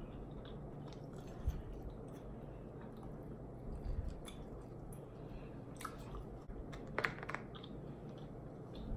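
A person chewing a mouthful of food close to the microphone: soft wet mouth sounds with a few short crisp clicks and crunches scattered through.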